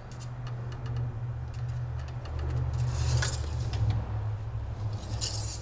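Engine oil dipstick being handled and drawn from its metal tube: light clicks and two short metallic scrapes, one about three seconds in and one near the end, over a steady low hum.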